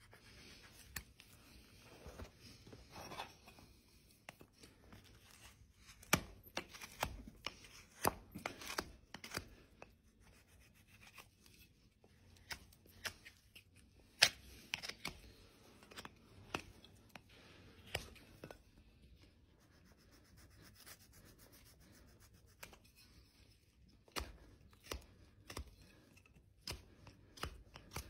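Hoof knife paring the sole and frog of a horse's hoof: irregular short scraping cuts, one after another, with a lull past the middle.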